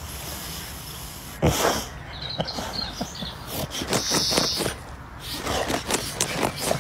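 White boxer dog digging in loose soil with its front paws: a run of quick scrapes and scatters of dirt, thickest near the end, with one louder rush of noise about a second and a half in.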